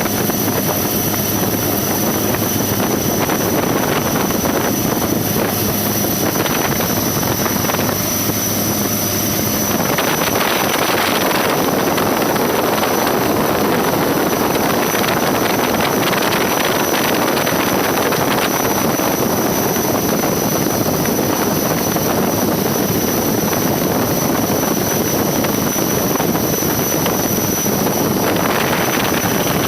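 Helicopter running, a loud steady rush of rotor and engine noise with a thin high whine over it.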